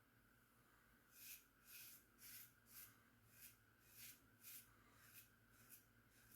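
Faint, short scrapes of a 1901 Gem Junior safety razor cutting lathered stubble on an against-the-grain pass, about two strokes a second, starting about a second in.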